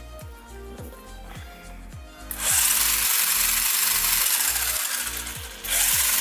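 Brushed electric motor and drivetrain of an 8821G 1/10-scale RC truck whirring loudly under throttle, spinning the rear wheels in the air. It comes in two runs: one starting about two seconds in and lasting about three seconds, a second starting again just before the end. Background music plays throughout.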